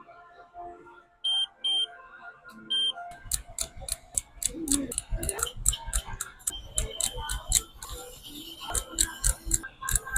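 Three short, high electronic beeps in the first three seconds, then music with a fast, busy beat and heavy bass.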